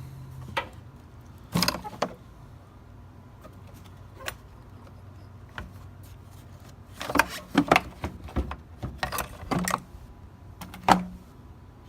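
Plastic clicks, knocks and rattles from a Mazda 3's air filter housing being taken apart by hand to get at the filter, with a busy flurry about seven to ten seconds in and one sharp knock near the end.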